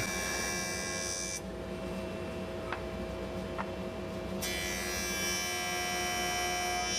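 Jointer running with a steady mechanical hum and whine, brighter and slightly louder for about the first second and a half and again over the last two and a half seconds as a board is pushed over the cutterhead for stopped cuts; a couple of faint ticks in between.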